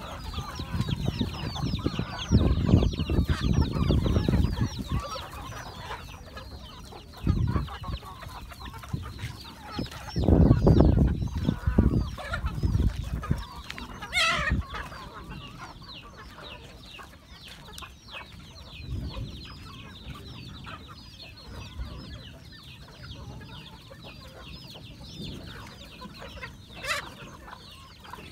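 A flock of native country chickens clucking and calling continuously while feeding on green leaves, with a sharper, louder call twice: once about halfway through and once near the end. Two spells of low rumble on the microphone, one a few seconds in and one about ten seconds in, are the loudest sounds.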